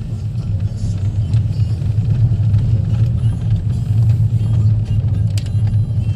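Car driving along, its engine and tyres making a steady low rumble.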